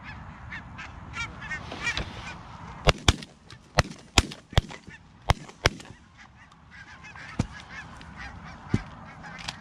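A flock of geese honking overhead, broken by a rapid volley of about seven shotgun shots between three and six seconds in, some only a fraction of a second apart, from more than one gun. Two more single shots follow near the end while the geese keep calling.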